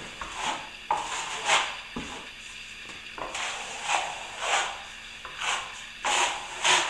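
Plastering trowel scraping wet finishing compound across plasterboard: a series of rasping strokes, a little more than one a second, as the last coat is floated over a taped crack.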